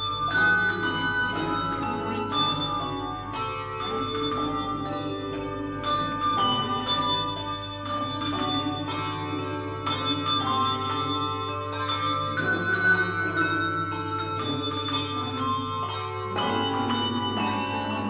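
A handbell choir playing a tune: many handbells ring out in turn, each note sounding on and overlapping the next.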